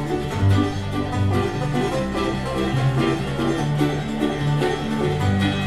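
Bluegrass band playing an instrumental break with no singing: quick banjo picking over strummed guitar and an alternating bass line.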